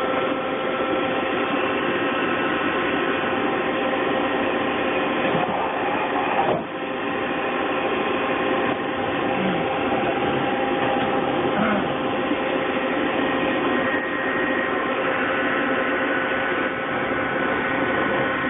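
Steady whine and hum of a running Mori Seiki CNC lathe: several steady tones over a machine noise, with a brief drop about six and a half seconds in.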